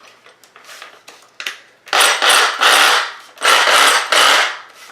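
Handling noise as a new cordless power tool and its packaging are handled: a run of about five loud scraping, rustling strokes about two seconds in.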